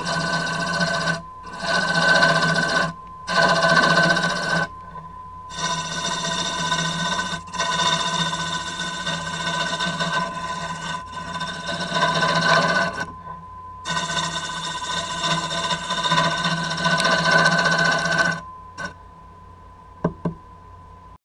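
Wood lathe running with a steady whine while a hand-held gouge cuts a spinning wooden blank. The cutting comes in several passes with short breaks between them and stops a few seconds before the end, leaving the lathe running with a couple of light clicks.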